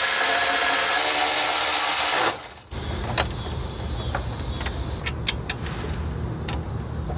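Handheld power tool running flat out for about two seconds as it drives bolts home on the supercharger pulley bracket, then stopping suddenly. After it comes a low steady rumble with scattered light metallic clicks.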